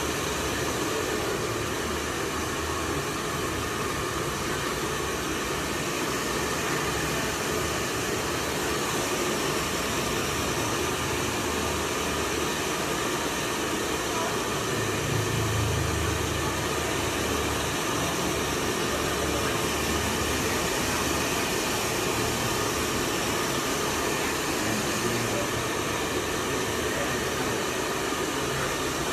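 Handheld hair dryers blowing a steady rush of air while a woman's hair is blow-dried.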